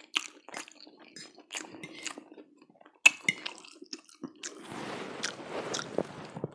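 Close-miked eating of spaghetti: wet chewing and mouth sounds with many small clicks, a sharp click about halfway through, then a longer, louder noisy stretch as a forkful of spaghetti goes into the mouth.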